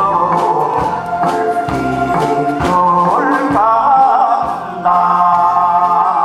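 A man singing a Korean trot song into a microphone over a karaoke backing track with drums and bass.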